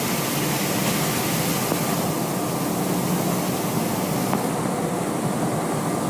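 Steady roar of molten iron pouring from a blast furnace spout into a hot-metal ladle, throwing sparks, mixed with the cast house's plant noise.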